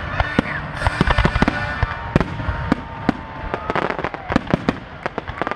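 Aerial firework shells and comets going off in a rapid barrage of bangs and crackling reports, thinning out and growing quieter near the end.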